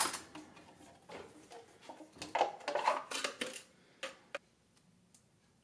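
Metal cutlery rattling and clinking in an open kitchen drawer as a spoon is picked out, in uneven bursts. About four seconds in there are a couple of light clicks, then it goes quiet.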